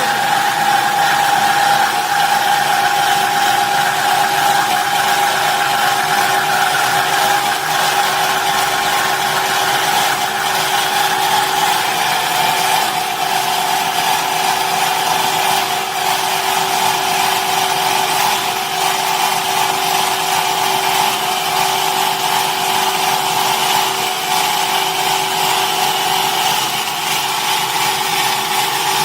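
WK 275SHP metal-cutting saw machine running through square pipe: a steady mechanical whine over a hissing cutting noise, its pitch sagging slightly about halfway through.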